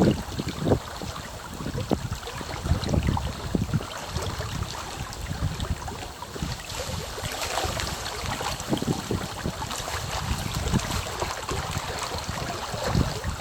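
Small waves lapping against the bank of a pond, a run of irregular soft splashes and slaps over a steady wash of water.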